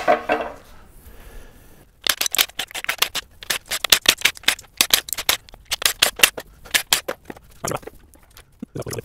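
Hand ratchet wrench clicking in a quick run of strokes on an engine teardown, then a couple of duller metal knocks near the end.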